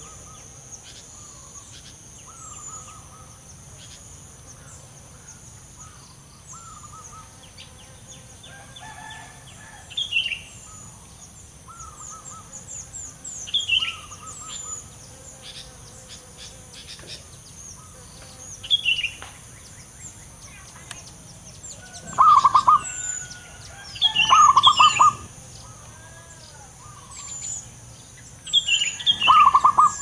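Male zebra dove cooing in three loud bursts of rapid, rolling notes in the second half, the last near the end. Other small birds chirp with short, high notes throughout.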